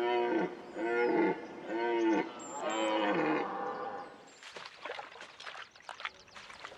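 Red deer stag giving four loud rutting roars in quick succession, each dropping in pitch at its end. After that come softer scattered splashes and rustles.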